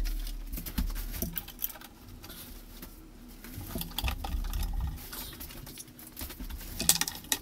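Light clicks, taps and scraping of a hand working at a wall cabinet's metal hanging bracket and its plastic cover, with a sharper cluster of clicks near the end. A low thud dies away at the start.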